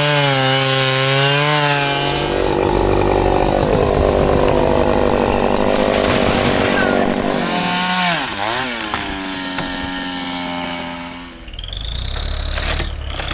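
Two-stroke chainsaw running at high revs, its engine pitch wavering as it cuts, dropping sharply and revving back up about eight seconds in, then stopping. Near the end a lower engine rumble takes over with a thin high whine.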